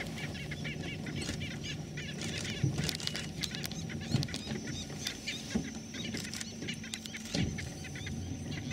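A chorus of birds calling: many quick, repeated chirps from several birds at once, over a low steady rumble. A thin, steady high tone joins about halfway through.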